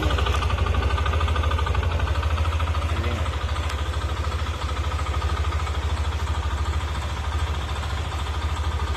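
Yamaha NMAX v2 scooter's single-cylinder engine idling steadily with a fast, even pulsing beat, a knock that the owner takes for engine knock.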